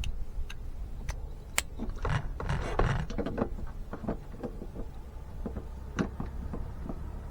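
Plastic clicks and rubbing from a headlight bulb and its socket being worked into a truck headlight housing, with a longer stretch of scraping about two to three and a half seconds in, over a steady low hum.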